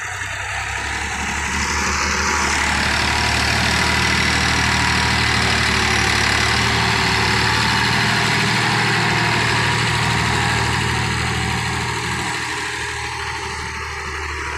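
Ford 4610 tractor's three-cylinder diesel engine running under load as it pushes earth with its front dozer blade. The sound grows louder about two seconds in and eases off over the last few seconds.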